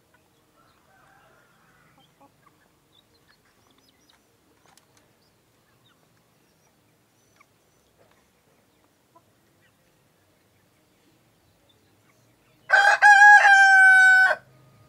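An ayam pejantan rooster, a male of a laying breed, crows once near the end. The crow opens with a couple of short broken notes and then holds a long note that falls slightly in pitch, about two seconds in all. Before it there are only faint scattered ticks.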